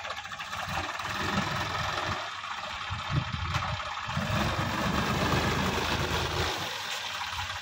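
Sonalika DI 50 RX tractor's diesel engine running under load as it drives through a flooded, muddy field, its wheels churning through water and mud.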